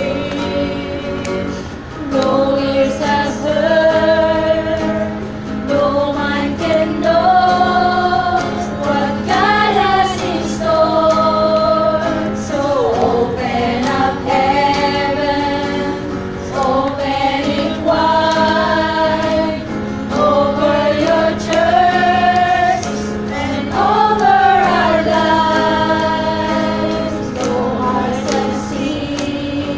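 A small group of women singing a gospel worship song together in long sustained phrases, with an acoustic guitar accompanying them.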